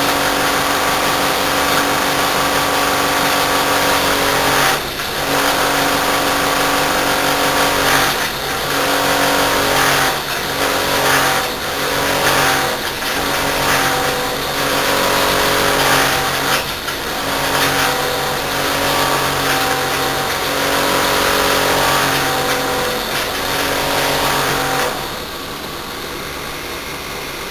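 Rotary air-conditioner compressor running overloaded in its death rattle: a loud, steady mechanical drone with fixed tones and irregular knocks. About 25 seconds in it cuts out, leaving a quieter steady whir.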